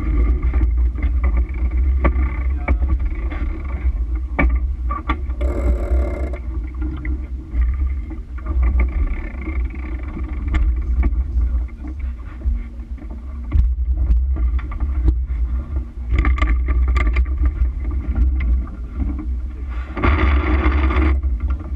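Sailboat under way: steady rumbling wind on the microphone with water rushing along the hull, scattered clicks and knocks of deck gear, and a louder rush about six seconds in and again near the end.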